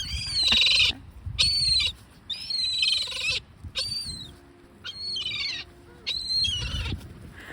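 Gulls calling repeatedly: about six high, arching cries, each under a second. A low wind rumble on the microphone runs beneath them.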